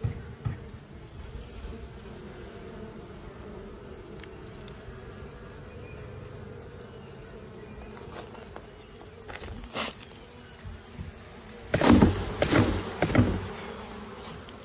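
Honeybees humming steadily over an open hive, with a burst of loud knocks and bumps about twelve seconds in as hive frames and a plastic tub are handled.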